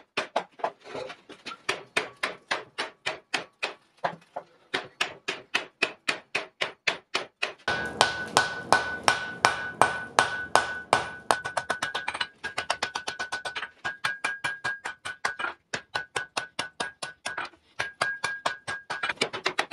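Blacksmith's hand hammer forging a red-hot wrought-iron axe blank in quick, regular blows, about three a second. The blank is first held in a vise, then on the anvil, where from about eight seconds in each blow rings with a clear, steady anvil ring.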